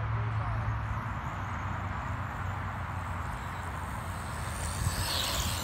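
Steady outdoor background rumble and hiss, with a few faint short chirps near the start and a brief brighter hiss about five seconds in.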